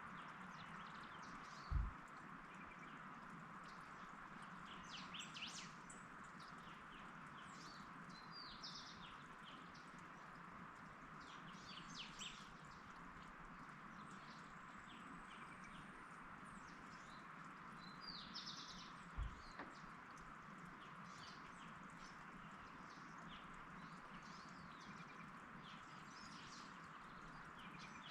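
Small birds chirping and calling at scattered intervals over a faint, steady hiss. Two short, low thumps come about two seconds in and again about two-thirds of the way through.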